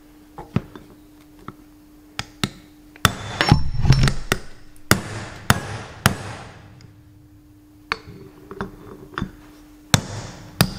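Ball-peen hammer tapping a steel seal driver to drive a new oil seal into a tractor front wheel hub: a string of sharp metallic taps, irregularly spaced, with a louder cluster of blows about three and a half seconds in. The seal had started going in crooked, and the taps are working it down square.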